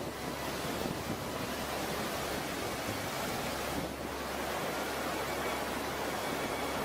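Fast-flowing floodwater rushing steadily, an even wash of noise with no breaks.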